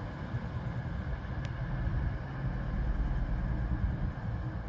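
Low, steady rumble of a CrossCountry Voyager diesel multiple unit's underfloor diesel engines as the train moves along the platform.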